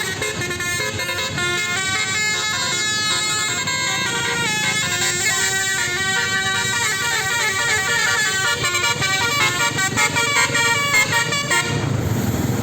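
Basuri telolet multi-tone air horn on a Haryanto bus playing a quick melody of stepped horn notes. It stops about twelve seconds in.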